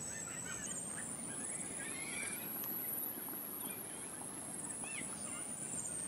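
Faint nature ambience with scattered short bird chirps, over a thin high whistle that steps up in pitch and then back down.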